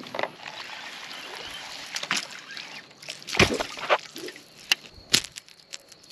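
A fishing line being reeled in and the soft-plastic worm rig handled in the boat: a soft hiss for the first few seconds, then several sharp clicks and knocks, the loudest about three and a half seconds in.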